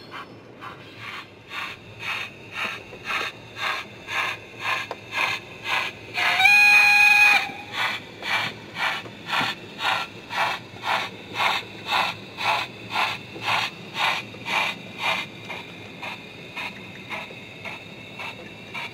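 Steam sound from an O gauge model tank locomotive under digital (DCC) control: even exhaust chuffs at about two a second, with a whistle sounding for about a second about six seconds in. The chuffs stop near the end.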